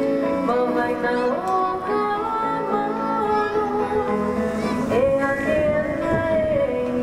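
Hawaiian music accompanying a hula dance: a singing voice carrying the melody over steady instrumental backing.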